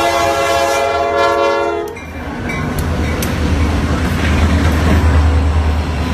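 Diesel freight locomotive's air horn sounding a loud chord that cuts off about two seconds in. Then the lead locomotives pass close by, with a heavy low engine rumble and wheels clicking on the rails.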